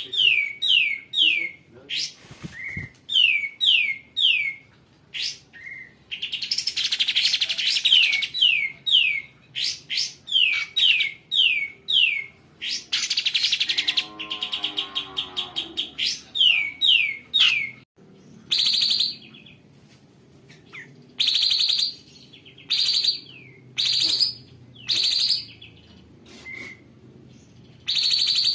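Kapas tembak songbird singing: a long run of quick, sharp down-slurred chirps broken by fast rough trills, then spaced single notes in the second half.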